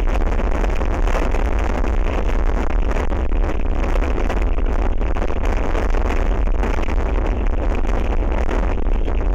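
Strong wind buffeting an outdoor camera microphone: a loud, steady rush with a heavy low rumble that does not let up.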